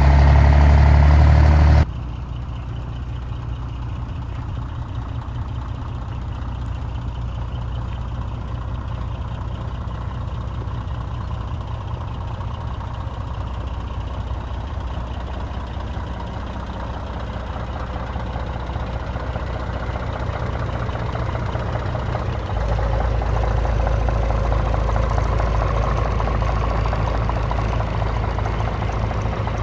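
Scania P124 420 truck's 12-litre inline-six diesel idling steadily. It is louder for about the first two seconds, drops suddenly, then swells somewhat in the last third.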